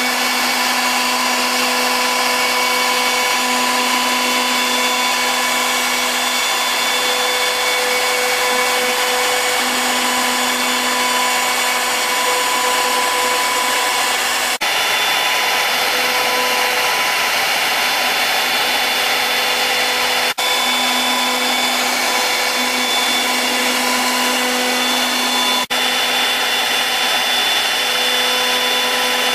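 CNC router spindle running steadily with a constant hum and whine as a V-shaped engraving bit cuts lettering into compact laminate panel. The sound drops out for an instant three times.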